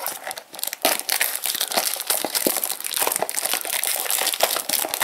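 Clear plastic shrink wrap being peeled and crumpled off a cardboard Funko Mystery Minis blind box: a continuous crinkling full of sharp little crackles.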